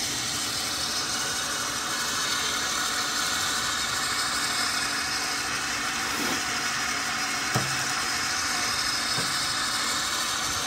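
12-volt Harbor Freight 5,000 lb electric winch running steadily, winding in cable under load as it pulls the tower upright. A few brief squeaks come partway through.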